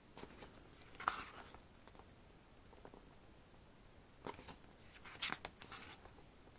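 Pages of a glossy album photo book being turned by hand: a few faint paper rustles and flicks, about a second in and again around four to five seconds in.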